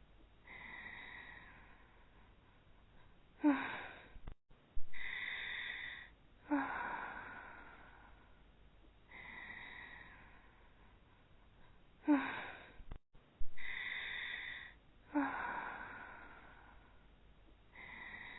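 Two cartoon characters' voice-acted snoring, taking turns: drawn-out breathy snores with short snorts that fall in pitch. The same sequence repeats about every eight and a half seconds, as a loop.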